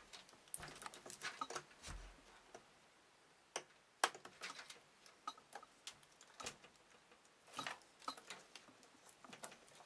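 Scattered small clicks and ticks of plastic cable and connector handling as a SATA power connector from the power supply is worked onto an optical drive inside a PC case, with a sharper click about four seconds in.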